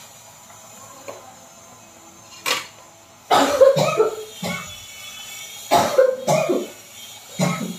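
A woman coughing in three fits of about a second each, starting about three seconds in, with a short throat noise just before the first.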